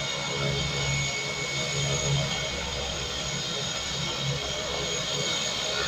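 Small propeller airplane's engine running steadily on the airstrip before take-off, a steady high whine over a low droning hum that pulses in strength.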